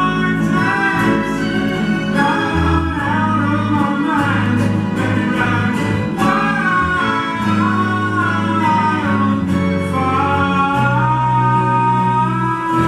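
A man singing live with acoustic guitar, accompanied by a small string section of violins and cello.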